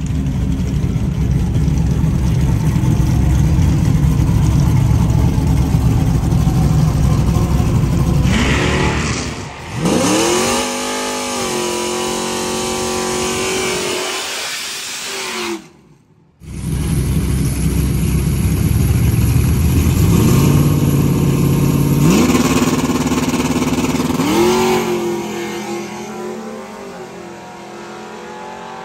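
Chevrolet Trailblazer SS drag racing: its engine is held at high revs with tyres spinning in a burnout, then revs rise and fall in sweeps. After a brief cut, it launches at full throttle, revs climbing sharply and fading as the truck pulls away down the track.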